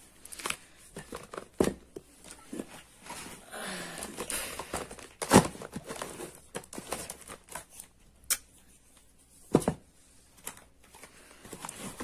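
Small cardboard cosmetic boxes and product tubes being handled and set down one by one in a storage box: irregular knocks and taps with some rustling and crinkling of packaging, the loudest knocks about five seconds in and again about nine and a half seconds in.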